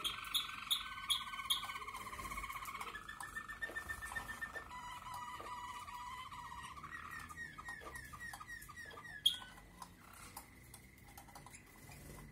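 Malinois (Waterslager) canary singing: rolling, finely pulsed trills held at one pitch and then another, with a run of quick falling notes about seven seconds in. A sharp click just after nine seconds is the loudest sound.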